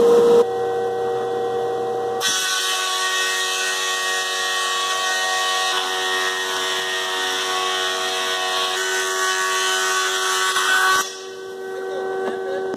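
Thickness planer and dust collector running: a loud, steady whine made of several tones over a rushing hiss. The sound shifts abruptly a few times and drops off near the end.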